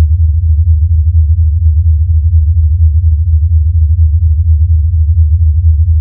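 Loud, low electronic hum with a fast, even flutter, presented as the sound of the black hole XTE J1650-500: a sonification of its X-ray signal.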